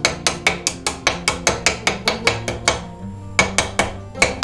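Hammer striking steel in quick, even taps, about five blows a second, driving a bearing into the end of a Ford Bronco steering-column tube held in a vise. The blows pause briefly about three seconds in, then resume.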